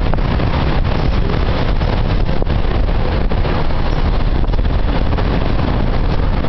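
Heavy storm surf breaking along the beach, mixed with strong wind buffeting the microphone: a loud, steady noise heaviest in the bass.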